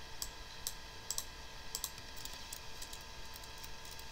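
Mouse clicks and computer keyboard typing: a few scattered clicks in the first two seconds, then a quicker run of keystrokes. Under them runs a steady whine of several tones, the noise the computer itself is making.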